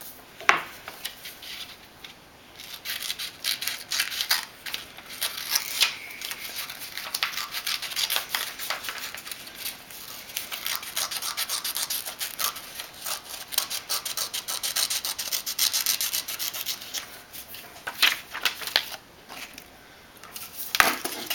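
Scissors cutting through a sheet of paper: a long run of quick crisp snips and paper rustling. A few louder clicks come near the end as the paper is handled on the desk.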